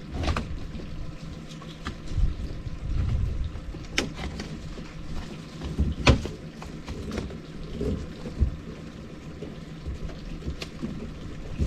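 Scattered knocks and clatter of mud crabs being handled in and around a crab pot, over a low rumble.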